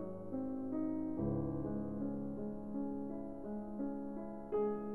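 Background piano music: a slow melody over sustained chords, with a louder chord near the end.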